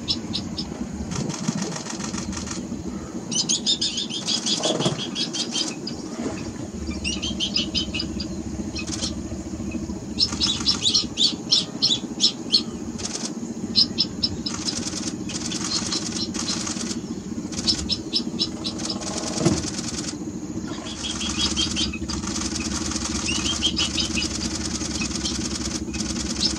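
Camera shutters firing in rapid bursts, each run of clicks about a second long and repeated many times, over a low steady hum.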